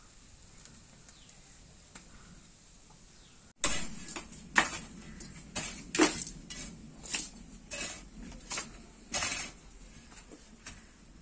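A hand tool striking and scraping into earth, about ten sharp strokes roughly every half second to a second, beginning a few seconds in after a faint quiet stretch.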